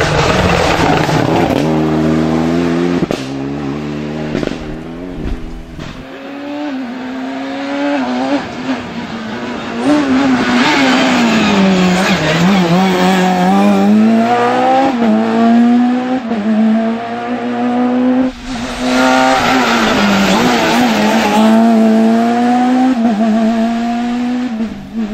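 Rally car engine revving hard up through the gears, its pitch climbing and then dropping sharply at each of several gear changes.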